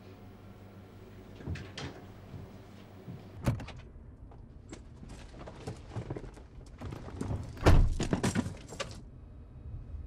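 Clicks and knocks of someone getting into a car, with a car door shutting about three quarters of the way in as the loudest sound, amid more handling clicks.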